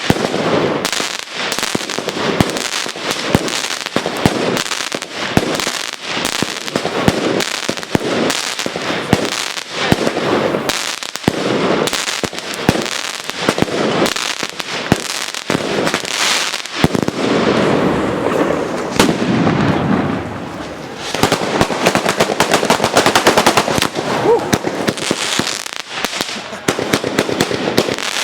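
Batteria napoletana: a ground-laid chain of firecrackers going off in a rapid, unbroken string of sharp bangs. The bangs thin out briefly about twenty seconds in, then pick up again as a denser crackling run.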